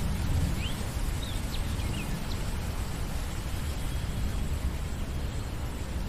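Steady rain falling on the surface of a shallow lake, a constant hiss over a low rumble. A few short, high bird chirps come in the first couple of seconds.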